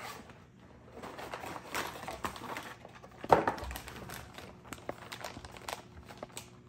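Clear plastic bags from a crystal-growing kit crinkling and rustling as they are handled, with scattered small clicks and a louder burst of rustling about three seconds in.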